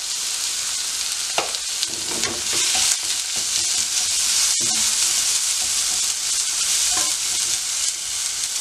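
Sliced onions, green chillies and garlic sizzling steadily in a little oil in a non-stick wok. A slotted spatula stirs and scrapes them with several short strokes.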